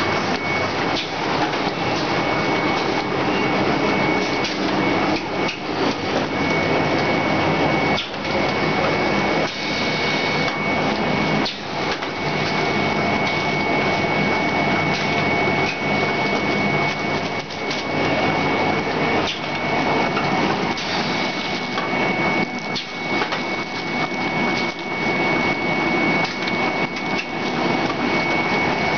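Soft-pack facial tissue folding and packing machines running: a continuous dense mechanical clatter of rapid clicks and knocks over a steady high-pitched whine.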